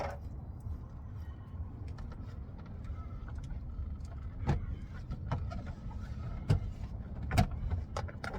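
Scattered clicks and sharp knocks from hand work on a pickup truck's door trim panel, four of them louder in the second half, over a steady low rumble.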